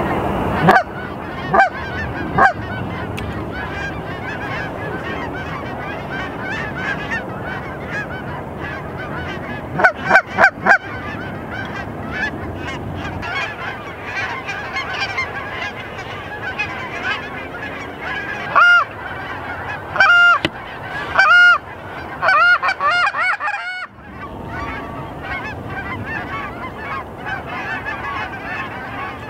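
A flock of Canada geese honking overhead in a continuous chorus. Louder, closer honks come in a quick run of about four near the tenth second, and again in a series between about 19 and 23 seconds in.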